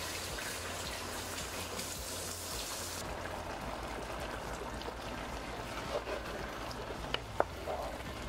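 Tomato sauce sizzling and spattering in a pot on high heat, a steady crackling hiss that softens in the highs about three seconds in. A couple of sharp clicks near the end.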